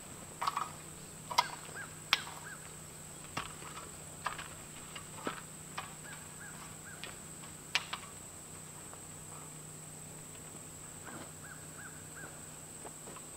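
Metal garden rake scraping and knocking through loose dirt and gravel in irregular strokes, which thin out after about eight seconds. A bird calls three times in short runs of three or four notes.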